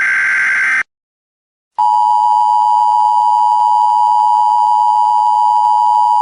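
The end of an Emergency Alert System SAME header data burst, a harsh digital warble that cuts off under a second in. After about a second of silence, the EAS two-tone attention signal starts and holds a steady, unbroken pitch.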